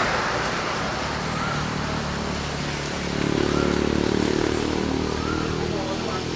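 Motorcycle engine running at low revs, growing louder about three seconds in and then easing off.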